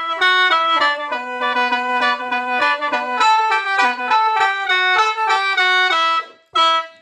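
A small low-key khaen, the Isan free-reed bamboo mouth organ, playing a melody in chords over a held drone note, with a short break near the end. It is easy on breath.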